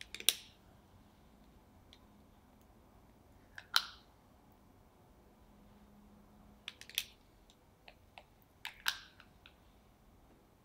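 Spring-loaded cookie scoop clicking as its trigger is squeezed to release portions of brownie dough: four sharp clicks about every three seconds, each with a few small ticks around it.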